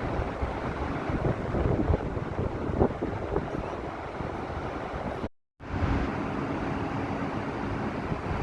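Wind buffeting the microphone in a steady rush with gusty peaks. The sound cuts out completely for a fraction of a second a little past five seconds in, and a faint steady hum runs under the wind for a couple of seconds after it.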